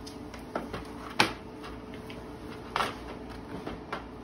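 Rigid plastic sterile instrument tray being handled on a tabletop: a few sharp clacks and knocks of hard plastic, the loudest about a second in and a quick double knock near three seconds.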